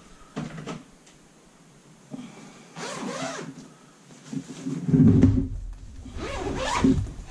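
Fabric rustling and knocks from a pop-up tackle organiser's fabric-and-frame body being handled and lifted open. The loudest rustle and knock come about five seconds in, as the top is raised.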